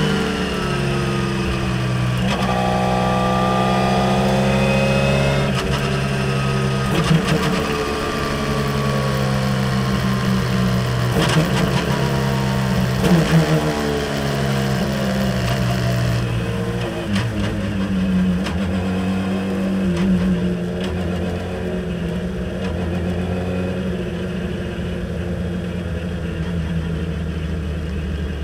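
In-car sound of a Radical SR3 RSX's 1340 cc four-cylinder engine as the car slows down. The engine note falls in steps as the driver changes down from fifth to second gear, with a few brief sharp bursts of revs around the downshifts. It then settles to a lower, steady run at pit-lane speed.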